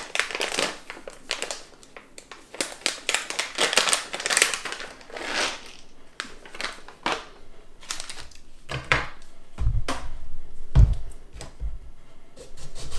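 Crinkling plastic packet and small clicks as pine nuts are poured from the bag into a plastic blender cup. A few dull knocks come near the end, as a lemon is cut on a plastic chopping board.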